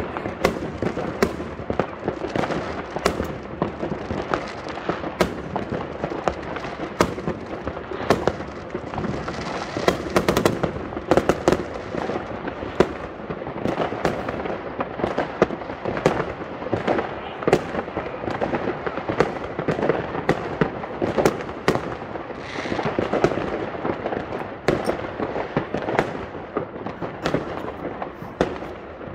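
Fireworks going off all around: a continuous, irregular barrage of bangs with crackling between them, many overlapping.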